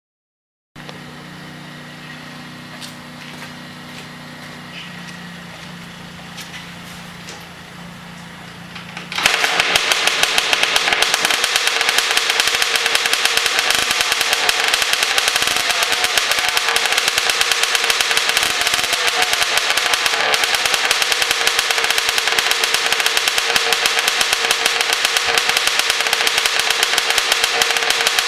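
Honda CR85's 85cc single-cylinder two-stroke engine catching about nine seconds in, then running steadily with a fast, crackling exhaust note, with water in its exhaust. Before it starts there is only a quieter steady hum.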